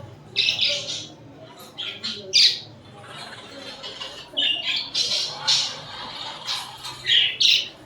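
Budgerigars squawking and chirping in short, sharp calls, one after another at an irregular pace, with a busier cluster around the middle.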